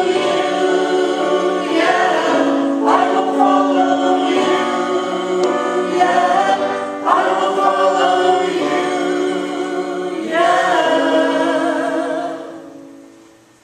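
Closing bars of a worship song: voices singing long held notes over accompaniment, fading out in the last second or two.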